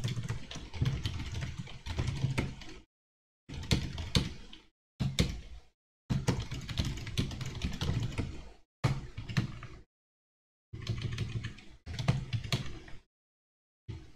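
Fast typing on a computer keyboard, a rapid run of key clicks in bursts of one to three seconds with short silent gaps between them.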